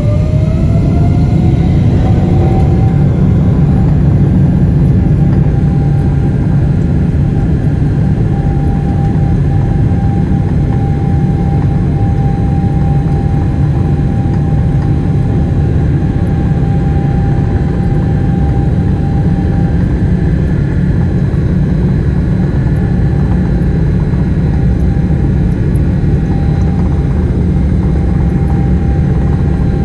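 Boeing 777-300ER's GE90-115B jet engine heard from the cabin, its whine rising over the first couple of seconds as it spools up, then holding a steady pitch over a deep, constant rumble.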